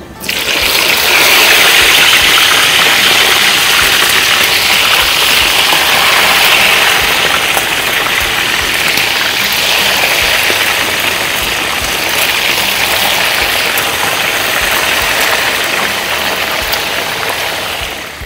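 Marinated chicken tails deep-frying in hot oil: a loud, steady sizzle that starts suddenly as they go in and eases off slightly over the following seconds.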